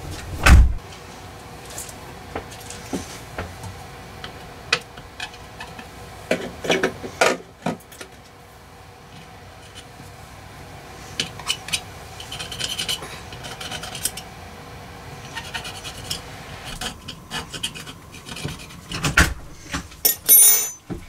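Hands working at a switch panel, rubbing and pressing labels onto it, with scattered small clicks and taps. There is a louder thump about half a second in and another near the end, followed by a quick cluster of sharp clicks.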